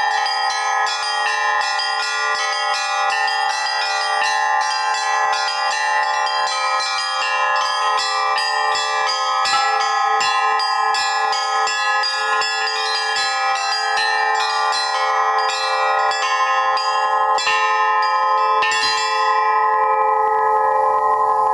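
Russian-style bells played as an ensemble by two ringers: the small upper-row bells struck in a fast, even run over the longer-ringing middle-row bells. The striking stops about three seconds before the end and the bells are left to ring out.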